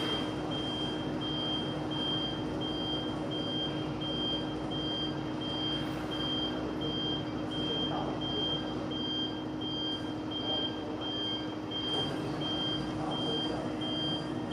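Evenly spaced high electronic beeps, about one and a half a second, over a steady machine hum and rumble.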